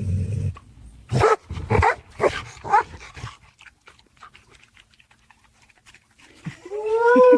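A dog vocalizing: a run of short barks from about one to three seconds in, then a longer whine that rises and falls near the end.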